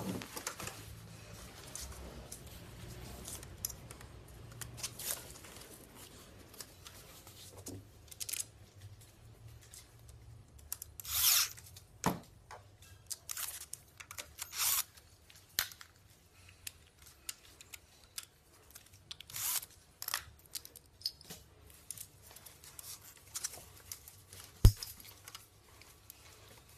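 A patio umbrella's black plastic upper hub and aluminium ribs being handled and worked on with a tool: scattered clacks, scrapes and short bursts of noise, and one sharp, loud click near the end.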